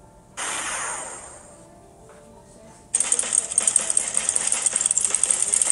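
Sound effects for summoning a weapon. A sudden blast comes about half a second in and fades over about a second. About three seconds in, a loud, fast rattling buzz starts.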